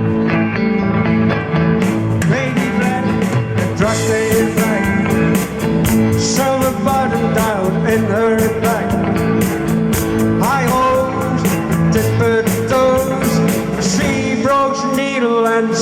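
Rock band playing an instrumental intro: electric guitar with bass, and cymbal or hi-hat strokes coming in about two seconds in, with bending melody notes over the top.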